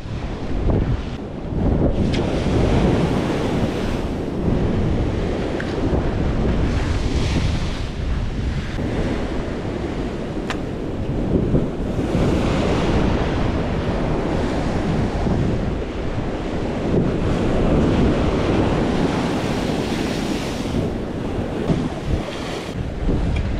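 Sea waves breaking and washing against rocks close by, with strong wind buffeting the microphone. The surf swells louder every few seconds as each wave breaks.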